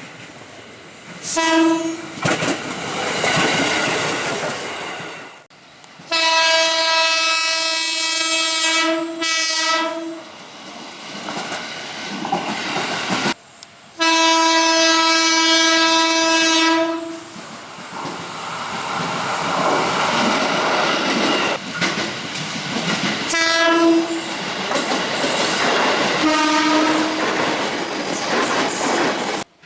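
KRL Commuter Line electric trains sounding their horns (the S35 signal), given as a greeting by the drivers. There are several blasts of one steady pitched horn, some short and two held for about three seconds, over the rumble and wheel clatter of passing trains. The sound cuts abruptly from one train to the next.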